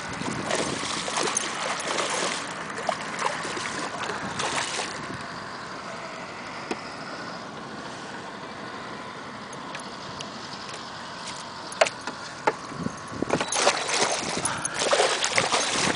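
A large muskie thrashing and splashing at the water's surface while hooked on a rod, in bursts of splashing at the start and again in the last couple of seconds, with quieter water sounds between.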